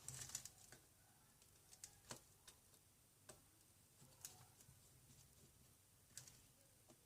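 Faint, scattered clicks and taps of small repair tools on an opened iPhone 7's metal internals: a quick cluster right at the start, then single ticks every second or so.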